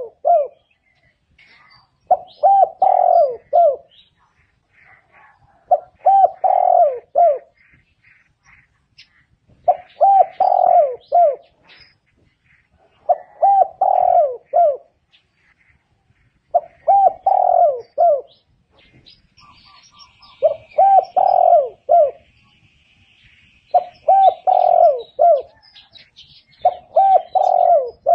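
Spotted dove cooing: a short phrase of several notes repeated about every three and a half seconds, eight times over.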